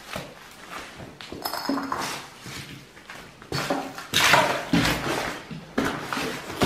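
Footsteps crunching and scraping over rubble and litter on a floor, with a short ringing clink about a second and a half in.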